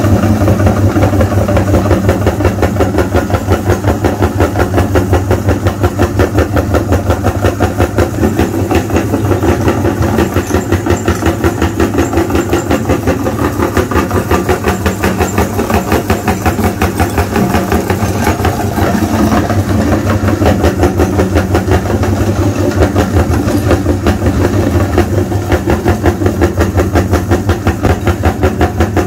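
An engine running steadily, with a fast, even pulse several times a second.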